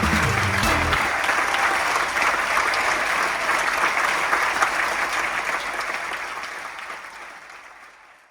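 Large audience applauding, a dense patter of clapping that fades out over the last couple of seconds. Music underneath stops about a second in.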